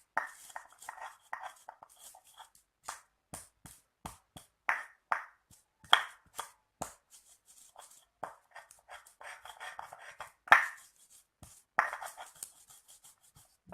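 Stone pestle and mortar (ulekan and cobek) pounding and grinding fresh herb leaves and lemongrass into a paste: an irregular run of sharp knocks, several a second, with short crushing scrapes between.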